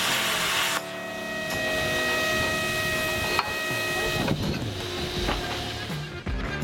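Angle grinder biting into metal for under a second, then running free off the work with a steady whine for about three seconds before it stops, followed by a few knocks.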